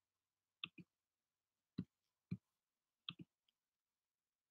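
Faint clicks at a computer, about six in three seconds, some in quick pairs.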